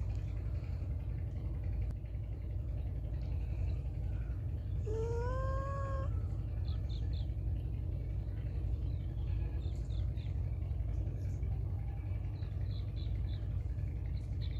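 A feral cat gives a single meow about five seconds in. It rises in pitch and holds for about a second, over a steady low rumble.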